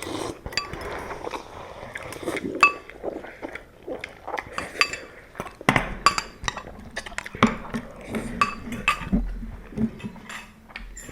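Eating utensils clinking and tapping against noodle bowls, many light irregular clicks, a few of them sharper.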